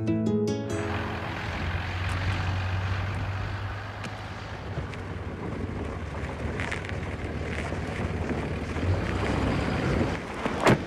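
A vehicle engine running steadily with a low hum and some wind noise, and one sharp knock near the end.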